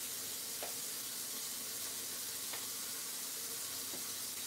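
Steady sizzling of food frying in a hot pan on a gas stove, with a couple of faint clicks.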